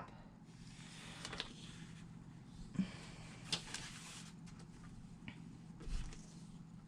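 Faint handling sounds of double-sided tape being run along a fabric bag strap: soft rubbing and rustling with a few light clicks and taps.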